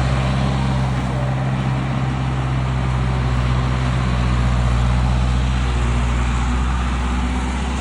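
Skid steer's engine running steadily with a low, even drone while it spreads and grades gravel.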